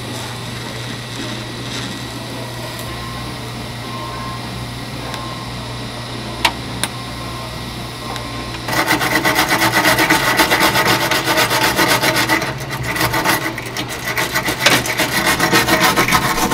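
Quiet TIG welding on the steel door: only a steady low hum and faint hiss. About nine seconds in, loud rapid back-and-forth scrubbing starts as the welded, paint-burnt spot is rubbed down by hand with a pad. It pauses briefly about twelve seconds in and stops near the end.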